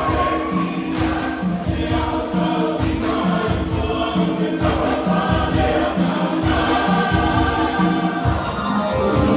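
A choir singing a church song over accompaniment with a steady low beat.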